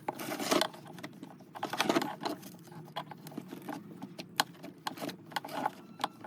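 Irregular small clicks, taps and rustling of hands working on a Bluetooth speaker's circuit board and wiring as its charging socket is pulled out.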